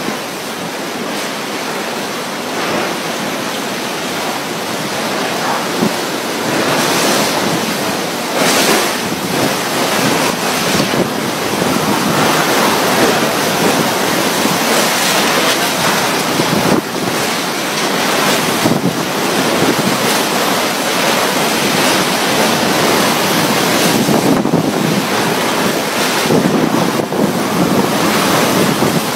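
Strong typhoon wind gusting hard and buffeting the microphone, a loud rushing noise that swells and eases in gusts.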